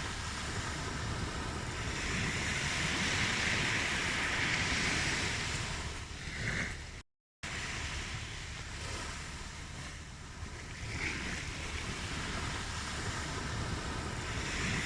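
Ocean waves washing onto a shore, a steady surf that swells and eases every few seconds. The sound cuts out to silence for a moment about seven seconds in, then resumes.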